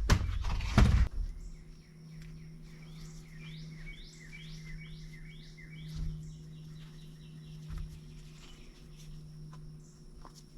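A bird singing a run of quick, repeated downward-sliding chirps, over a steady low hum. A loud clattering, rustling noise fills the first second, and a couple of dull thumps come later.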